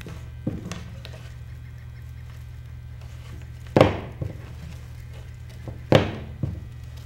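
Handling knocks from wreath-making at a worktable as floral wire from a spool is wrapped around fir greens on a wire ring. There are two loud knocks about two seconds apart and a few smaller taps, over a steady low hum.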